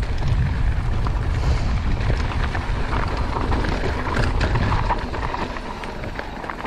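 Mountain bike rolling fast down a dirt and rock trail: wind rumbling heavily on the microphone, with tyres on loose dirt and a steady run of small clicks and rattles from the bike over rough ground.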